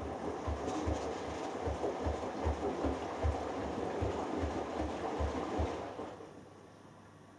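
Hoover Dynamic Next DXA610IW3 washing machine drum turning during the delicates wash: water and laundry sloshing, with soft low thumps about three times a second. It stops about six seconds in as the drum pauses between turns.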